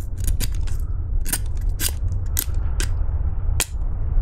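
Fixed-blade knife shaving a very dry twig: a dozen or so sharp, uneven snaps and crackles as the wood is cut, over a steady low rumble.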